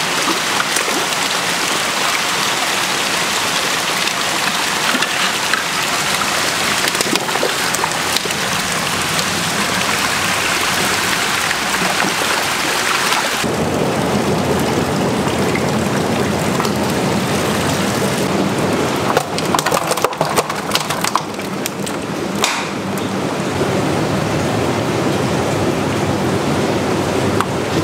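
Steady rushing and splashing of water in eel-farm tanks: first water stirred in a tank, then, after a sudden change about halfway through, water pouring from a pipe into a bubbling tank. A few irregular clicks and knocks come in the later part.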